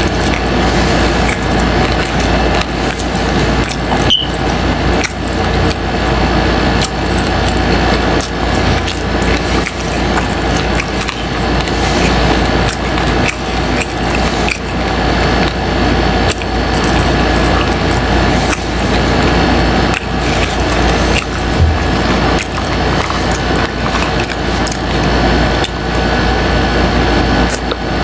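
Close-miked chewing of a crunchy taco with tripas: steady crunching and crackling with wet mouth sounds.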